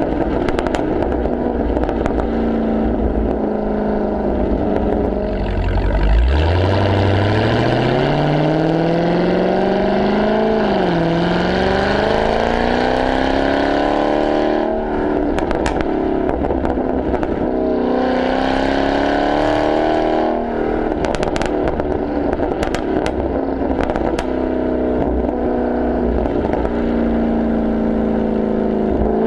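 Dodge Charger Hellcat's supercharged 6.2-litre Hemi V8 through a Corsa Xtreme exhaust, heard at the tailpipe while driving. About six seconds in it accelerates, rising steeply in pitch with a brief dip at a gear change. It then lifts off, crackling and popping under engine braking for several seconds, before settling to a steady cruise.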